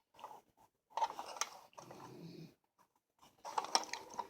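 Scattered light clicks and scrapes of small parts being handled during reassembly of a Marx #6000 toy diesel locomotive, with a short rustle in the middle.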